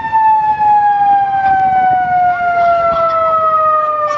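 Fire rescue truck's siren winding down: one long wail whose pitch falls slowly and steadily.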